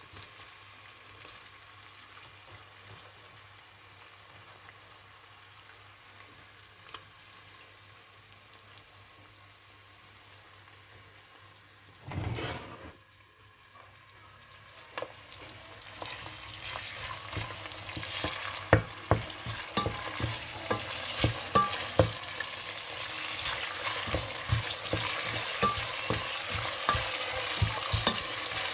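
Onions and pork frying in a stainless steel pot, a faint sizzle at first that grows louder in the second half, with a brief loud burst about twelve seconds in. A wooden spoon stirring the food knocks many times against the pot in the louder second half.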